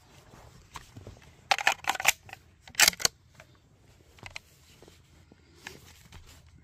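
Handling noise from a .450 Bushmaster rifle being settled on a bench rest: scattered clicks and knocks, with two close clusters of sharper clacks, the loudest about three seconds in.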